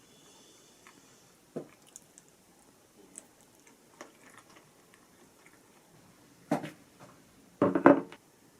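Quiet eating and tableware handling: scattered light clicks and taps, a sharper knock about a second and a half in, and a louder pair of knocks and clatters near the end.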